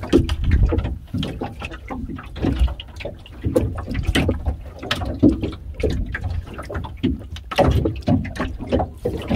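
Sea and boat noise on a small open fishing boat: a steady low rumble, with water against the hull and irregular knocks and clatters throughout.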